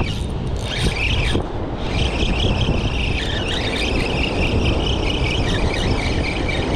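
Spinning reel on a surf rod being cranked in fast, its gears giving a high, grainy whir that starts briefly about a second in and then runs steadily from about two seconds in, as line is taken up on a hooked fish. Wind rumbles on the microphone beneath it.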